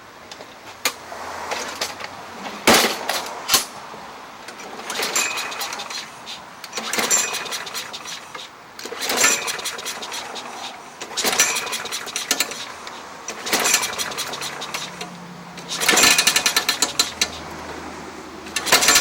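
A tool rattling in short rapid-fire bursts about every two seconds, after two sharp knocks a few seconds in: fastening work on a lawn mower's cutting blade.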